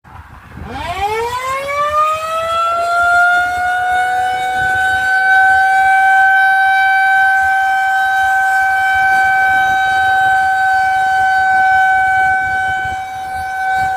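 Federal Signal 2001-130 electromechanical outdoor warning siren winding up from a standstill. Its pitch rises steeply for the first few seconds, then it holds a steady, loud single tone.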